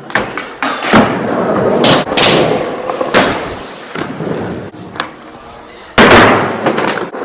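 Skateboard rolling with repeated hard board slaps and landings: sharp knocks about one, two and three seconds in, and the loudest about six seconds in.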